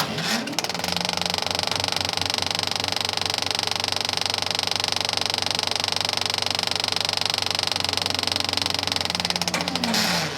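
Film projector motor spinning up, then running with a rapid, steady clatter of the film mechanism, and winding down near the end.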